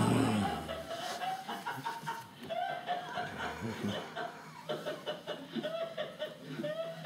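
A loud snore trails off at the very start, then a person snickers and chuckles in short, stifled bursts.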